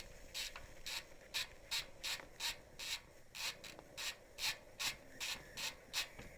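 BMX rear wheel with a Colony Wasp hub turning, making an even rasping tick about three times a second.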